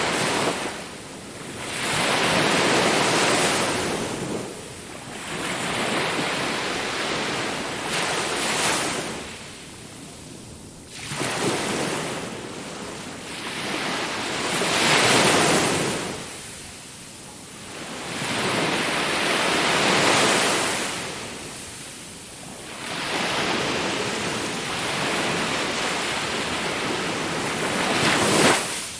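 Sea waves surging and washing in, each wave a swell of rushing water noise that builds and fades over a few seconds, about six waves in all. One sharp peak comes just before the end.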